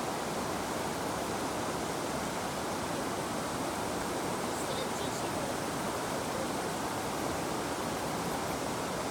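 River water flowing and rushing in a steady, even wash. A couple of faint, short high chirps come through about halfway.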